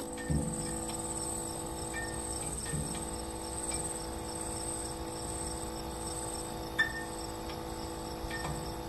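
Crickets chirping in a continuous pulsing trill over a low steady hum.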